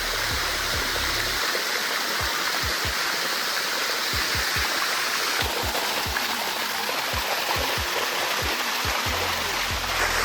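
Waterfall water running steadily over limestone rocks, a dense, even rush.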